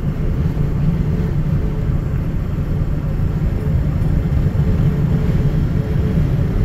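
Road and engine noise inside a truck's cab at highway speed: a steady low rumble with a faint steady hum above it.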